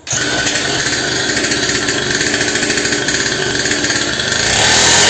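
Small 49cc two-stroke engine of a kids' mini dirt bike starting at once and running with a loud, buzzing, chainsaw-like note. It revs up a little about four seconds in.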